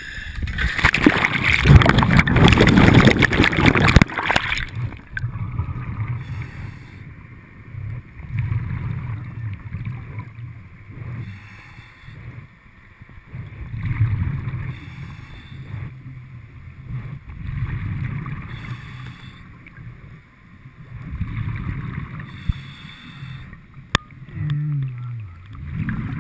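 A diver going into the sea: a loud rush of splashing and bubbles for the first few seconds, then bursts of bubbling heard underwater about every four seconds, the diver's breaths venting from a commercial diving helmet.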